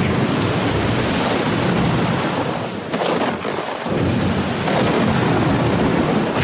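Loud rushing noise of ocean surf, which thins out for about a second roughly three seconds in and then surges back.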